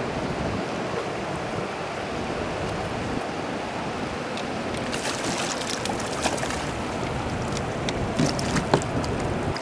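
Steady rush of fast, churning river water and wind around a small fishing boat. From about five seconds in come scattered small splashes and clicks, the strongest near the end, as a hooked striped bass thrashes at the surface beside the hull.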